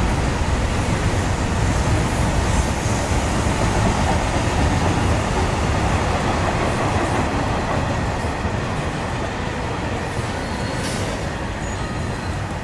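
A freight train's tank wagons rolling past at close range: a steady rumble of wheels on the rails, easing off slightly in the second half.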